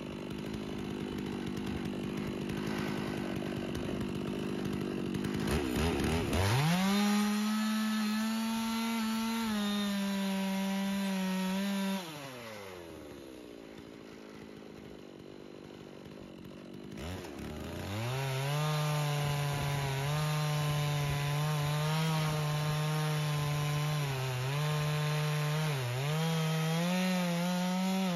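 Farmertec G660 92cc two-stroke chainsaw mounted on a chainsaw mill: idling, then revved to full throttle about six seconds in, throttle released around twelve seconds so it winds down to idle. It is opened up again a few seconds later and runs under load ripping lengthwise through a thick cherry log, its pitch dipping briefly twice as it labours in the cut.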